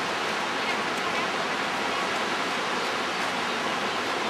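Steady rush of a nearby mountain stream, an even roar of running water with no break.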